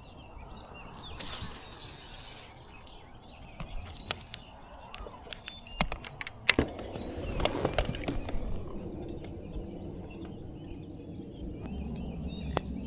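Birds chirping faintly in the background, with scattered sharp clicks and knocks close by.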